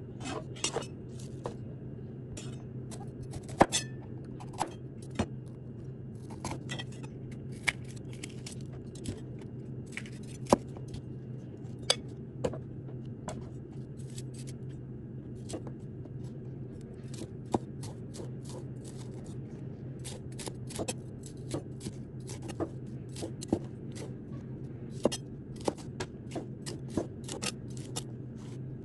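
Cleaver slicing a red bell pepper on a wooden cutting board: irregular sharp knocks of the blade meeting the board, sometimes several a second, over a steady low hum.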